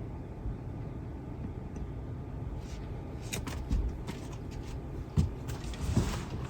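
A run of small clicks, taps and knocks from hands working plastic interior trim and parts in a car, starting about two and a half seconds in, with the loudest knocks near the end, over a steady low rumble.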